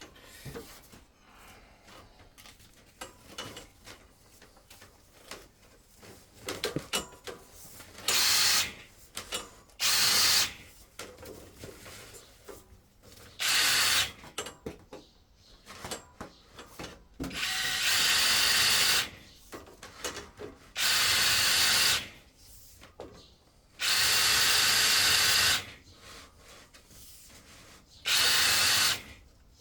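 Power drill running in seven short bursts of about half a second to two seconds each, with quieter clicks and scrapes between the runs.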